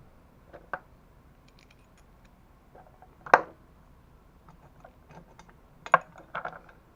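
Sharp clicks and knocks of parts and hand tools being handled at the bench, four or so separate strikes, the loudest about a third of the way through and another strong one near the end.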